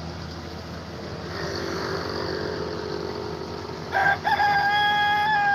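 Rooster crowing: one long, held crow that starts about four seconds in. Before and under it is the steady hum of a rice combine harvester working the field.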